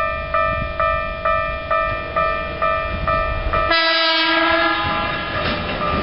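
Japanese level-crossing warning bell ringing about twice a second. About four seconds in, a Keikyu train sounds its horn for about a second, then the noise of the passing train rises and the bell continues fainter under it.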